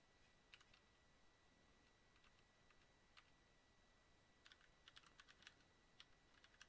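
Faint computer keyboard typing: a few scattered keystrokes at first, then a quicker run of keystrokes in the last two seconds or so.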